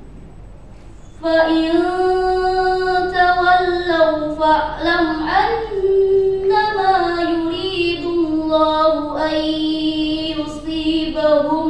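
A teenage girl reciting the Qur'an in Arabic in the murattal style, a measured, melodic recitation. Her voice comes in about a second in and carries long held notes that glide between pitches in extended phrases.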